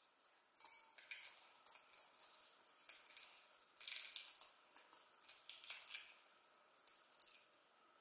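Faint, irregular rustling and crackling of disposable gloves as hands turn and rub an egg.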